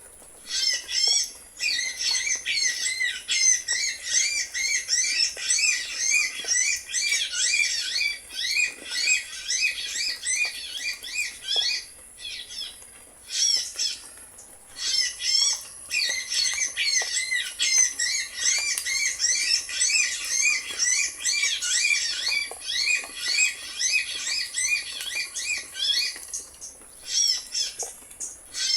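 Small birds chirping rapidly and continuously in dense, high-pitched trills, with a few brief pauses.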